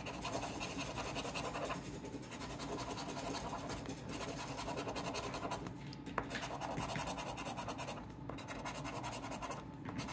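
A coin scraping the latex coating off a paper scratch-off lottery ticket, with quick back-and-forth strokes that pause briefly a few times.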